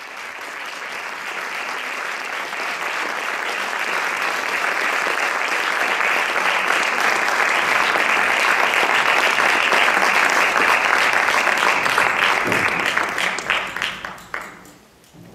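Audience applauding, swelling gradually, then thinning to scattered claps and stopping near the end.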